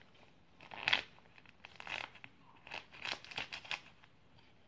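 Paper crinkling and rustling in short irregular bursts as it is tipped and shaken to pour cornstarch, a little at a time, into a bowl.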